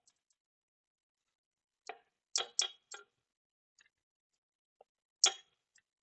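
Sharp metallic clinks and knocks of hand tools and steel parts during the unbolting of a forklift transaxle: four quick clinks about two to three seconds in, then one louder knock a little past five seconds.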